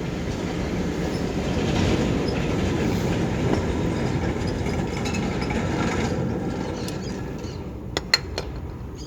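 A heavy vehicle passing by: a steady rumble that builds, holds for a few seconds and fades away, with a few sharp clicks near the end.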